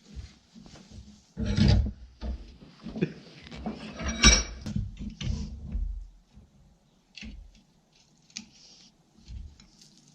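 Irregular metal clanks and scrapes as tools and steel bar stock are handled at the forge, with a longer loud scrape about one and a half seconds in and a sharp ringing clank about four seconds in, then only scattered light clicks.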